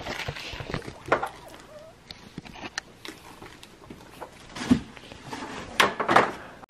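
Handling noise from a Bell Qualifier full-face helmet being taken out of its bag and turned over: scattered clicks, light knocks and rustling, with a few brief louder sounds in the second half.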